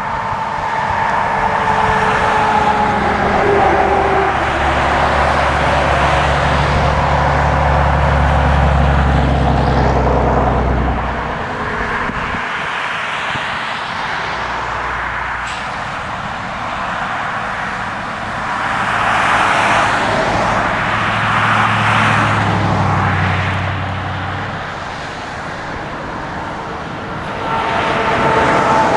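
Shuttlewagon SWX410 railcar mover's diesel engine working as it moves grain cars. It runs hard for about ten seconds, eases off, then works up again. A high steady tone sounds at the start and again near the end.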